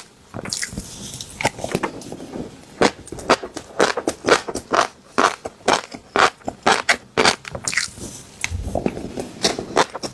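Fish roe eggs popping in quick, irregular crackling clicks, several a second.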